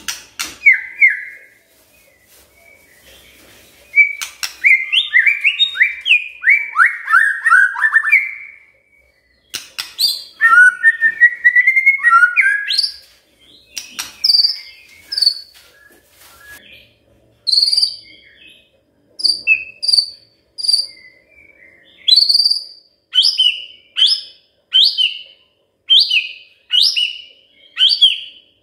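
White-rumped shama singing: a run of quick descending whistled notes, then a jumbled warbling phrase, then a string of short, sharp, high notes repeated about once a second through the last ten seconds.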